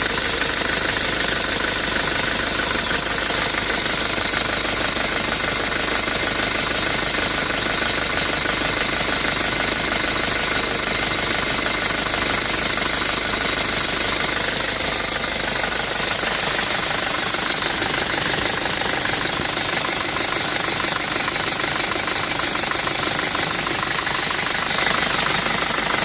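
Nissan Navara D22 engine running steadily with an even, rapid mechanical clatter and a strong hiss over it.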